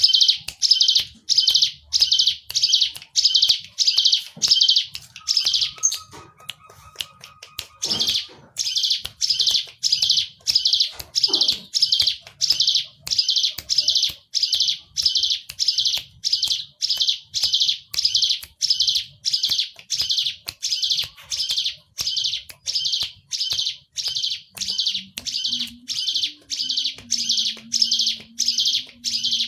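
Ciblek gunung (a mountain prinia) calling: a long run of short, high chirps repeated about twice a second, breaking off for about two seconds near a quarter of the way in before resuming.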